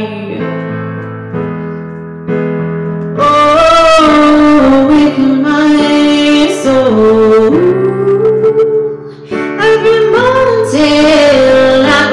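A woman's wordless singing over keyboard chords: the first three seconds hold keyboard chords alone, then her voice comes in with long held notes that slide up and down.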